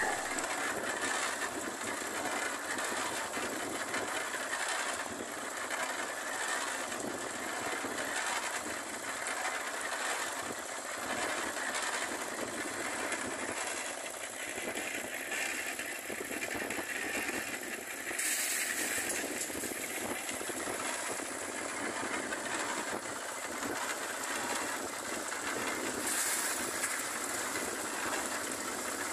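Portable drum concrete mixer running: its small engine chugs steadily while the drum turns with a load of cement and gravel, making a continuous clattering churn. Two brief hissing scrapes stand out about two-thirds of the way through and near the end.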